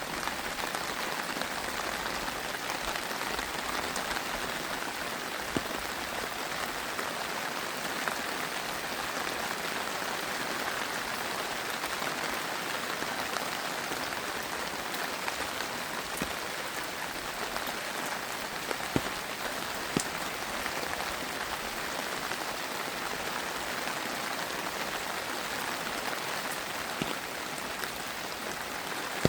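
Steady rain falling on leaves, an even patter of drops with a few louder single drop strikes standing out.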